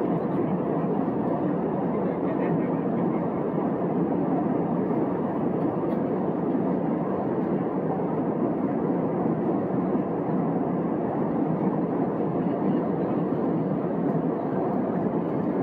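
Steady cabin noise of an Airbus A320neo in flight: an even rush of engine and airflow noise heard inside the passenger cabin.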